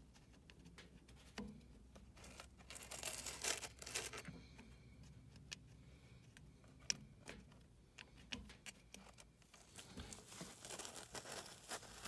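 Faint rustling and a few small plastic clicks as a bundle of wires and its 16-pin connector plug are handled and worked into the socket of a variable-speed blower motor.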